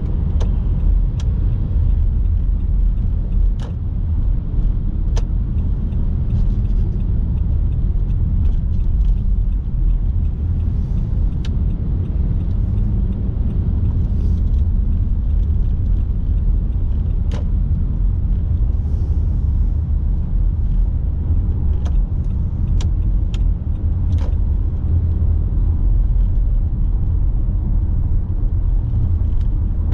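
Steady low rumble of a car driving along a road, with a dozen or so irregularly spaced sharp ticks.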